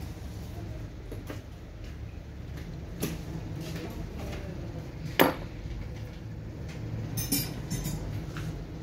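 Metal parts knocking and clinking on a workbench: a few scattered clicks, one sharp metallic knock with a short ring about five seconds in, and a quick run of clinks near the end, over a steady low hum.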